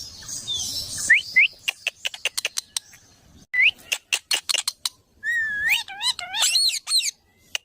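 A parrot making short rising whistles, then a rapid run of sharp clicks, then wavering, warbling calls near the end.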